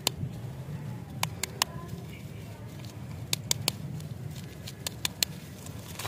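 Lollipop wrapper crinkling under the fingers as the wrapped lollipop is handled: sharp, scattered crackles over a low steady hum.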